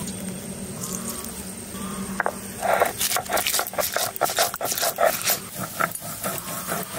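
Hand grinding on a flat stone slab (sil-nora): a stone is rubbed and rocked over mustard seeds and dried red chillies, making quick irregular scraping and knocking strokes, several a second, from about two seconds in.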